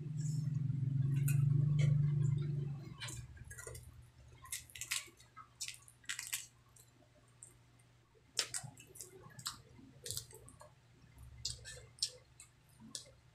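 A closed-mouth 'mmm' hum lasting a couple of seconds, then wet chewing, lip smacks and sticky finger clicks as fried fish and rice are eaten by hand.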